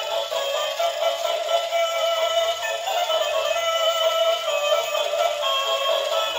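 An electronic toy cow playing its built-in song: a synthetic voice sings a tune over a thin electronic melody that has no bass.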